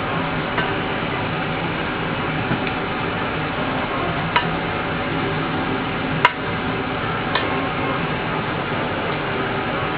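A few light, sharp clicks and knocks as a woofer's metal basket is handled and set down on the bench, over a steady background hiss.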